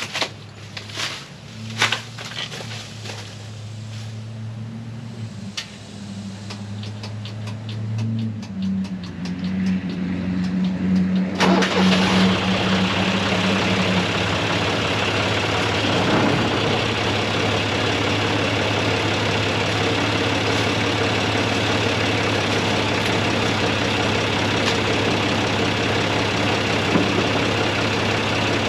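John Deere 2155 tractor's three-cylinder diesel engine being started: a few clicks and a low steady drone while it turns over, then it catches about eleven seconds in and runs on loud and steady.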